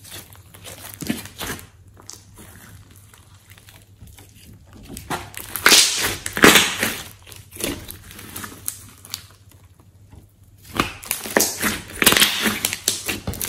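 Hands kneading and pressing glossy slime with glitter in it, making crackly, wet popping and clicking sounds. The crackling comes in two louder stretches, about five seconds in and again near the end, with softer squishing between.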